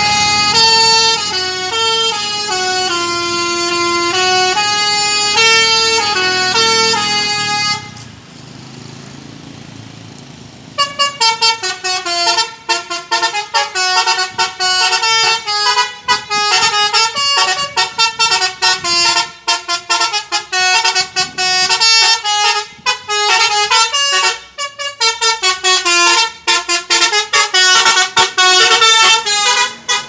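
Tour bus's Basuri 'telolet' multi-tone musical air horn playing a tune of changing notes. After a brief lull about eight seconds in, it breaks into a fast, stuttering run of short notes that keeps going.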